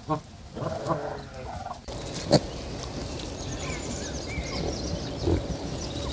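Muscovy ducks giving short pitched calls for about two seconds, then piglets grunting as they root about in grass. A sharp click comes just after the change.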